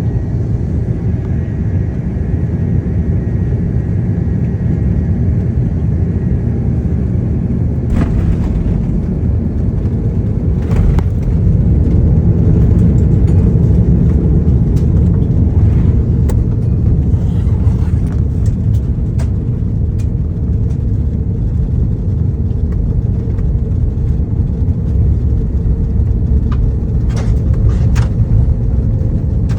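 Airliner cabin noise during landing: a steady low rumble of engines and airflow. About eight seconds in comes a thump as the wheels touch down, and a deeper runway rumble follows, loudest a few seconds later as the aircraft slows.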